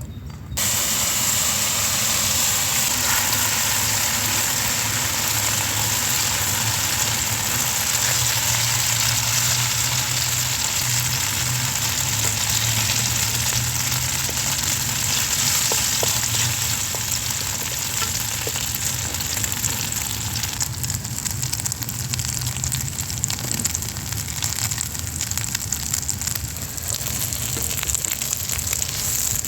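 Food frying in hot oil in a pan: a steady, dense sizzle that starts abruptly about half a second in and eases slightly about two-thirds of the way through.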